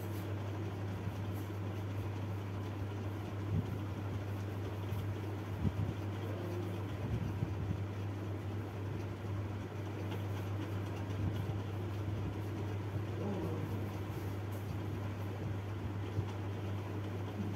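Steady low hum over a hiss of room noise, with a few soft knocks about four to seven seconds in.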